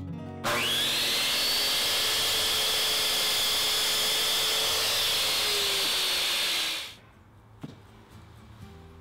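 Miter saw motor starting with a rising whine about half a second in, then running loud and steady as the blade cuts through MDF door casing, its pitch dipping slightly before it shuts off about two seconds before the end.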